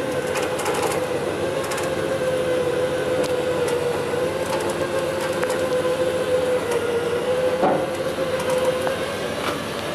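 A winch motor running with a steady, slightly wavering whine while it pulls the International B-160 firetruck up the ramps onto the steel trailer deck.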